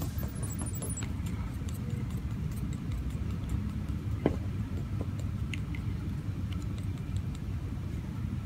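Wooden coffee stirrer mixing epoxy inside a wooden brush handle: scattered light ticks and taps, with one sharper click about four seconds in, over a steady low rumble.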